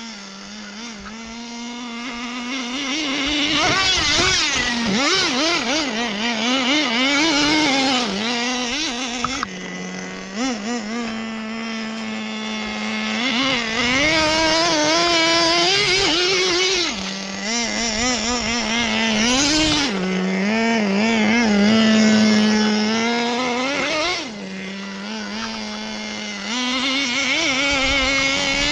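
Traxxas Nitro Slash's small two-stroke nitro engine revving up and down over and over as the truck drives, the pitch swooping with each burst of throttle and settling to a steady tone in between.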